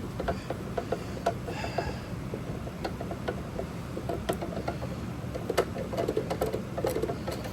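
Handling noise from plastic computer speaker cabinets: irregular light clicks, taps and knocks over a low steady hum, with a brief squeak about a second and a half in.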